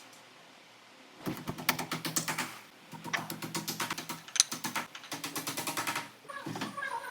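Screwdriver driving screws into wardrobe panels, giving rapid, evenly spaced clicking in two runs: a short one a little over a second in, then a longer one of about three seconds.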